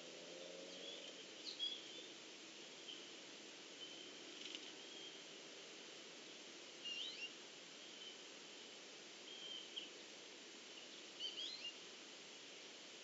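Faint pond-side ambience: a steady high insect trill with short bird chirps every couple of seconds.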